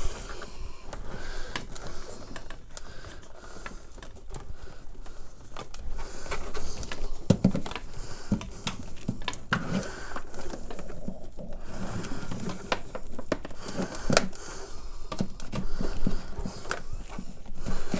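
Hands rummaging through a bundle of LAN cables and their plastic plugs: irregular clicks, knocks and rustling, with a few heavier thumps.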